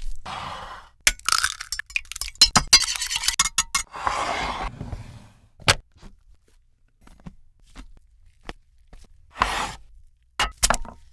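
Food-preparation sounds: sharp clinks and taps of utensils against dishes, mixed with short bursts of scraping and rustling, with quieter pauses between. A quick run of clinks comes early on and a few single taps near the end.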